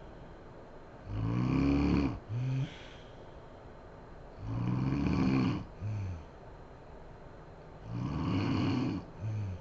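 A woman snoring in her sleep: three low snores about three and a half seconds apart, each followed by a short second snore, with quiet between them.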